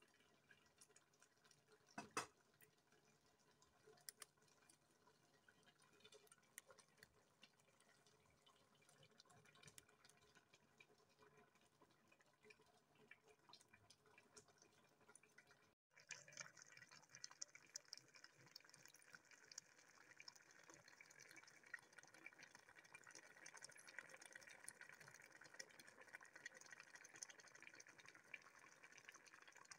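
Very faint throughout. A few light clicks and one sharper knock about two seconds in, then, from about halfway, a big pot of afang soup simmering on the stove: a steady faint bubbling with small crackles.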